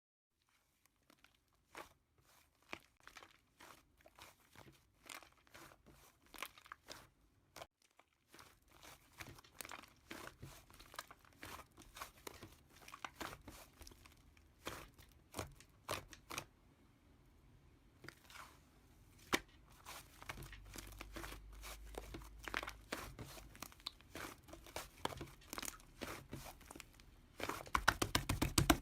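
Slime being squished and stretched by hand, making a string of small crackling clicks and pops that come faster and louder near the end.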